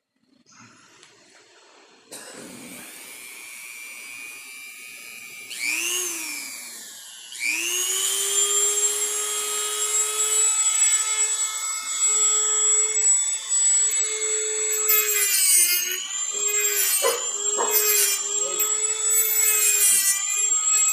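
Dremel rotary tool with a cutoff wheel spinning up to a steady high whine about seven seconds in. From about fifteen seconds its pitch dips again and again with a gritty grinding as the wheel cuts into the cracks of a vintage steering wheel rim, widening them for filling.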